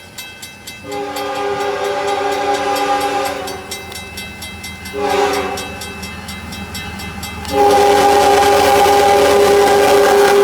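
CSX locomotive's multi-chime air horn sounding a long blast, a short one, then another long blast still held at the end, over the rumble of the moving train.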